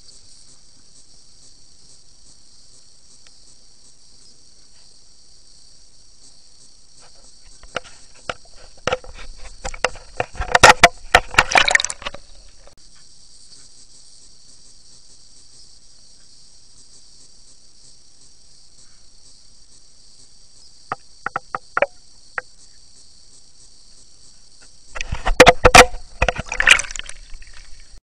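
Underwater recording: a steady high hiss with bouts of rapid sharp clicks and knocks. There is a dense bout about a third of the way in, a brief one past two-thirds, and a loud one near the end.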